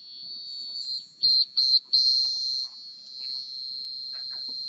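Small piezo buzzer driven by a BBC micro:bit sounding a high-pitched electronic tone. The tone is steady, then breaks into three short loud beeps a little over a second in and a longer beep around two seconds before settling back to a steady tone. The changes follow the light level that the micro:bit's LEDs read as a hand covers the board.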